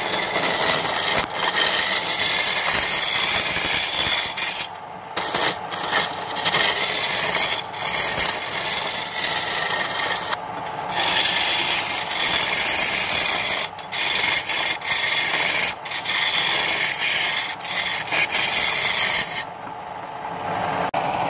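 A hand-held tool working a spinning sono wood blank on a wood lathe: a steady, loud hissing scrape as it rides along the wood, lifting off briefly about five seconds in, again at about ten seconds, and near the end, when only the lathe's lower running sound is left.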